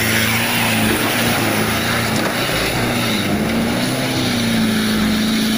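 A tanker truck's engine running under load as the truck drives through deep mud, with a steady wash of churning mud and water. The engine's pitch dips and then climbs again a little past the middle.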